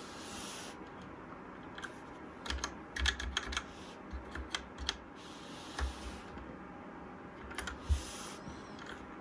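Keys of a Trust GXT 865 Asta mechanical keyboard with red switches being pressed in irregular clusters of clicks, a few at a time with pauses between.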